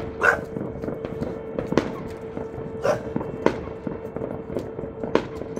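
Distant fireworks going off at irregular intervals, with crackles and several louder bangs among them. A steady hum runs underneath.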